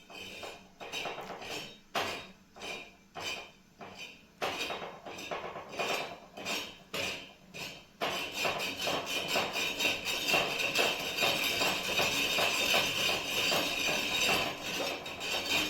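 Kitchen utensils knocking and clinking irregularly, then from about halfway a dense, steady hissing noise.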